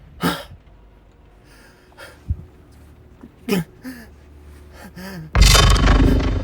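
A frightened person gasping in short, pitched breaths, several times. About five seconds in, a sudden loud rushing noise cuts in and keeps going.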